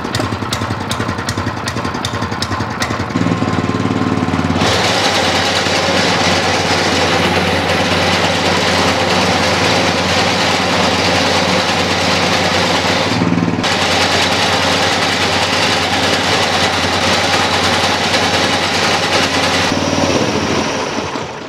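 Small petrol engine of a power weeder running with its reaper attachment. About four seconds in the cutter bar is engaged and a loud, even mechanical noise joins the engine. It breaks off briefly near the middle, then resumes. Near the end the sound dies away.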